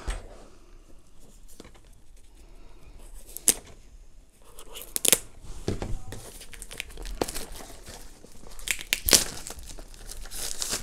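Plastic wrapping crinkling and tearing as it is worked off a small cardboard box, with a few sharp snaps and taps.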